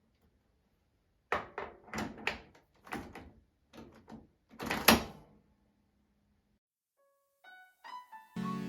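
A run of about eight sharp knocks and clunks over a few seconds, the loudest about five seconds in. Near the end, plucked guitar notes lead into background music.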